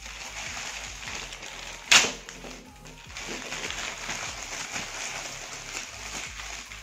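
Plastic packaging rustling and crinkling as a courier pouch is opened and a cable sealed in a clear plastic bag is handled, with one sharp, loud crackle of plastic about two seconds in.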